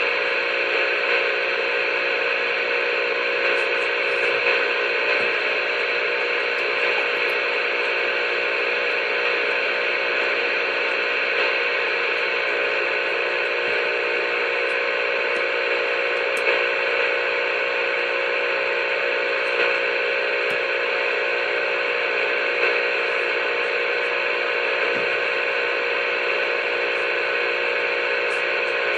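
A CB radio speaker giving out a steady hiss of static, with a few steady tones held through it and no voice: an open carrier keyed up on the channel.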